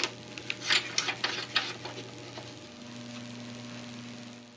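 Small metallic clicks and scrapes of a coax plug's threaded collar being screwed onto a linear amplifier's rear-panel RF input jack. They stop about two and a half seconds in, and a faint steady hum follows.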